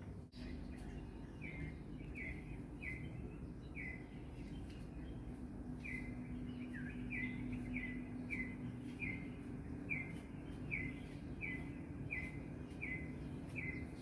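A bird calling over and over, a short falling chirp repeated about three times every two seconds with a brief pause partway, over a low steady background hum.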